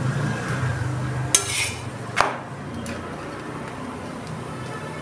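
A utensil knocks twice against a tawa as a stuffed paratha is turned over; the second knock rings briefly.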